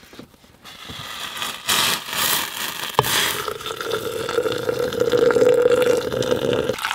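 Jetboil camp stove: gas hissing, a sharp click about three seconds in, then the burner running with a steady hum that stops suddenly near the end.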